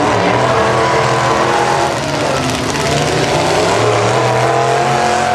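Demolition derby pickup truck engines revving hard, their pitch rising and falling together.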